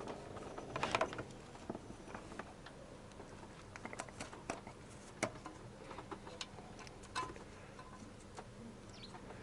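Scattered small clicks, taps and rustles of hands fitting a toothed timing belt over the engine's pulleys, with a louder cluster about a second in.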